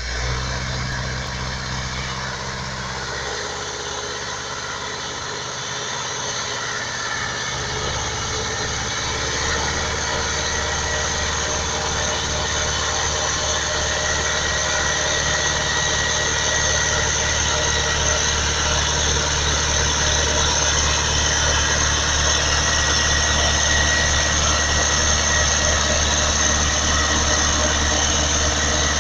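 Ursus C-360 tractor's four-cylinder diesel engine running, its note shifting a few seconds in and then holding steady as it grows slightly louder.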